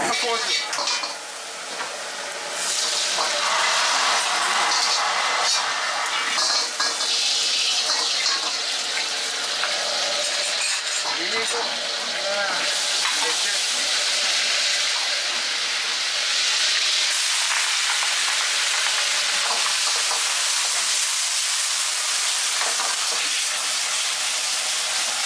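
Stir-fry of greens in a wok over a high gas flame: a loud, steady sizzle that swells about two and a half seconds in, stirred with a ladle.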